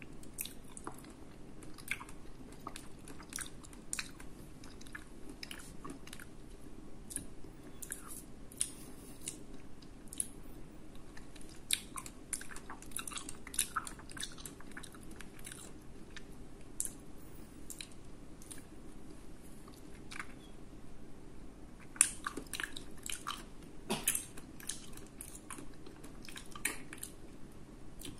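Close-up chewing of orange segments, with many sharp mouth clicks at irregular intervals.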